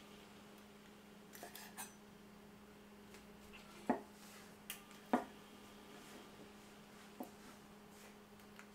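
A kitchen knife knocking on a cutting board while trimming wood ear mushrooms: a few sparse, sharp taps, the loudest about four and five seconds in, over a faint steady hum.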